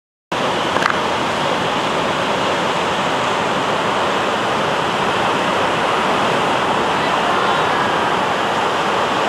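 Steady roar of ocean surf breaking over a rocky reef, starting abruptly a moment in, with a faint click about a second in.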